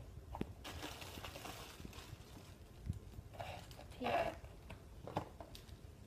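A cardboard shipping box being opened and unpacked: flaps rustling and light knocks as hands work inside it, and plastic air-pillow packing crinkling, loudest about four seconds in, as it is pulled out.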